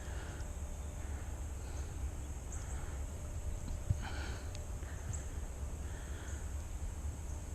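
A person breathing through the nose close to the microphone, soft irregular breaths every second or two, over a steady low rumble and a faint high hiss.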